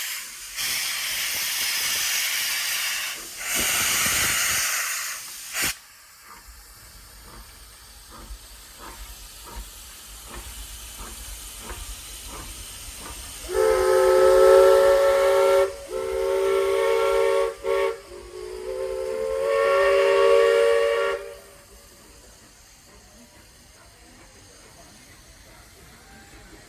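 1916 Baldwin steam locomotive WDWRR No. 4: a loud hiss of venting steam, then quieter, evenly spaced exhaust beats as it works, then its steam whistle sounding several notes at once in a few blasts over about eight seconds.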